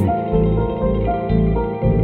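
Background music: a melody of held notes over a low bass line, without drums.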